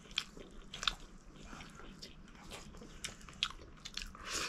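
A person chewing food close to the microphone: irregular crunches and small wet mouth clicks.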